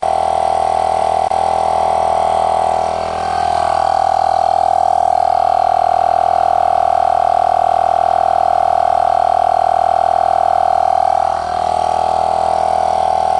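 Harbor Freight Pittsburgh 12V direct-drive portable air compressor running, a steady, rapidly pulsing buzz with a strong whine whose pitch dips briefly twice. The sound starts and cuts off abruptly.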